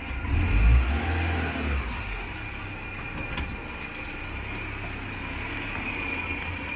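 A car engine surges in the first two seconds, then runs steadily with a low rumble and a thin high whine.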